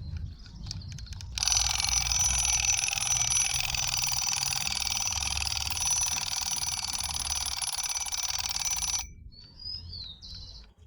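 A 1970 White Dove alarm clock's bell ringing loudly and continuously for about seven and a half seconds after a few clicks, then cutting off suddenly.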